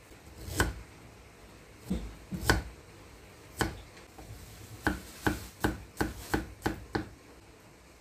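Kitchen knife cutting garlic cloves against a thick round wooden chopping board. A few scattered knocks come first, then a quicker run of about seven cuts over two seconds.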